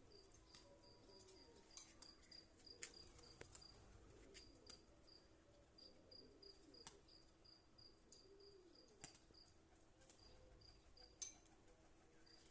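Faint cricket chirping in even high pulses about three times a second, with pigeons cooing softly and low underneath and a few sharp clicks.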